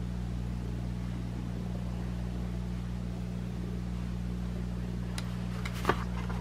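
Steady low background hum throughout. Near the end come a few light clicks and one sharp tap.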